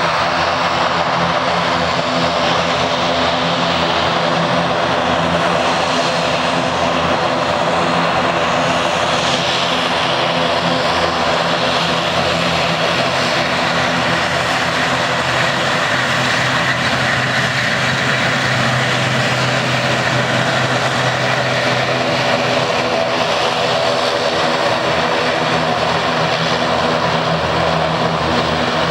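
ATR 72-500's twin Pratt & Whitney Canada PW127 turboprop engines at taxi power, a steady propeller drone with a high whine as the aircraft taxis close by.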